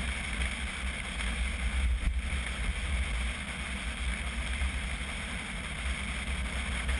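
Steady low rumble of wind and road noise from a vehicle driving along, picked up by a camera mounted outside on its roof, with an even hiss above the rumble.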